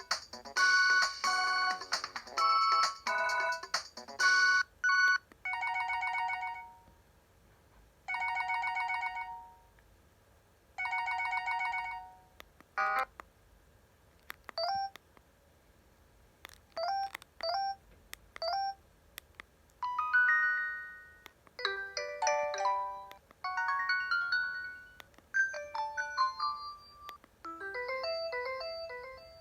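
Preloaded ringtones of a Huawei U2800A phone playing one after another. First a quick electronic melody, then three trilling rings about two and a half seconds apart, then a few short rising chirps, then several short phrases of beeping notes.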